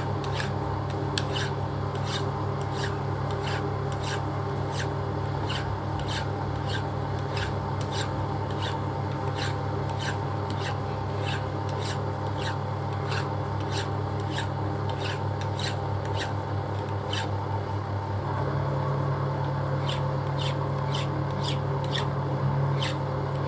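Metal lathe running with a steady hum while a flat polishing bar is held against the spinning workpiece, rubbing with sharp clicks about twice a second. The hum gets a little louder about eighteen seconds in.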